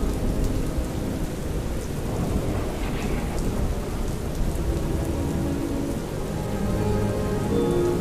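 Steady rain with a continuous low thunder rumble. Faint held music notes come back in near the end.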